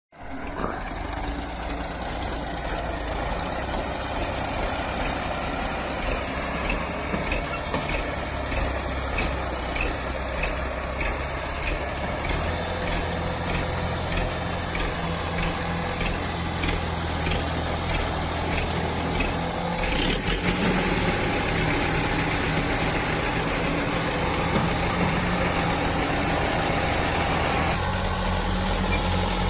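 Diesel farm tractor engine running steadily under load as it hauls a trailer heaped with soil, with a low throb. About twenty seconds in the sound changes abruptly and runs a little louder.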